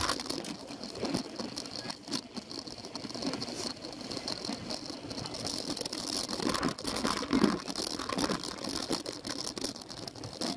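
Steady clatter and rattling from a bike-mounted camera while a cyclo-cross bike rides over bumpy grass and dirt, with tyre and drivetrain noise mixed in.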